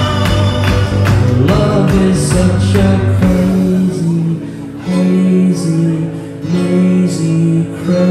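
Live rock band playing an instrumental passage on acoustic guitar, electric guitar, bass and drums. The drum hits stop about three seconds in, leaving the guitars and bass on a repeating back-and-forth figure of low notes.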